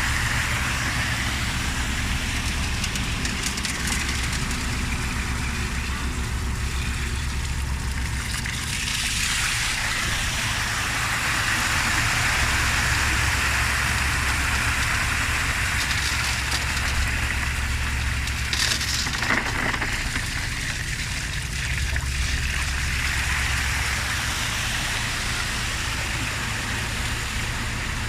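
Mercedes-Benz Arocs concrete mixer truck's diesel engine running steadily while concrete discharges, with a rushing, pouring noise that swells and fades several times over the engine hum.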